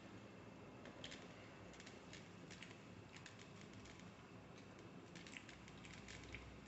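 Faint, irregular small clicks and crinkles of fingers tearing flaky Kerala parotta and gathering beef fry on a steel plate.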